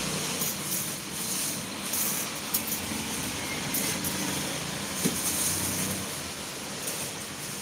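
Steady background noise like distant traffic, with a few light knocks as small round bulbs are picked up and set into a wire rack.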